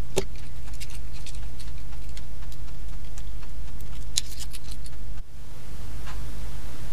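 Scattered small clicks and light rattles of fingers handling a plastic lighter part and thin wires, with a short cluster of sharper clicks about four seconds in, over a steady low hum.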